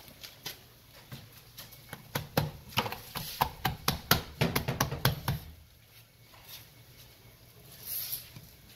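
Hands patting and slapping a flexible texture stamp pressed onto wet cement. A quick run of sharp pats, several a second, for a few seconds in the middle.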